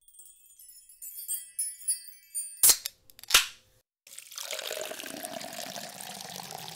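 Intro sound effects: high twinkling chime notes for the first couple of seconds, then two sharp pops a little over half a second apart, the loudest sounds here, then a steady fizzing hiss of carbonated soda.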